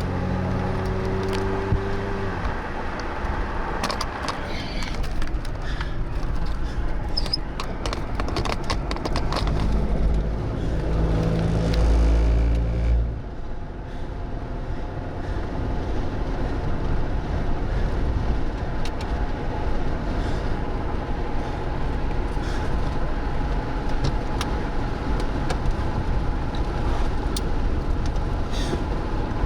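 Car engine and road noise while driving. A run of sharp taps comes from about 4 to 10 seconds in. The low engine sound grows louder and then drops away abruptly about 13 seconds in, leaving a steady road noise.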